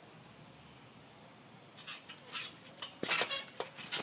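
Trampoline mat and springs thumping and squeaking under a back handspring, starting about two seconds in, with the loudest knocks and squeaks near the end.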